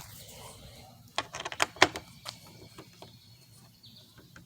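A quick run of light clicks and taps, bunched from about one to two and a half seconds in, as a windscreen bolt is worked out with a 4 mm hex key; a few fainter ticks follow.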